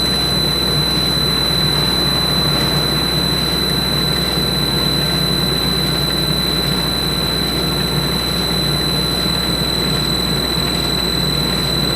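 Norton cylindrical grinder running: a steady machine hum with a constant high-pitched whine.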